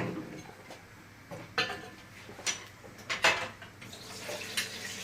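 A person drinking a warm milk drink in gulps: a few separate swallows, roughly a second apart, with faint liquid sounds.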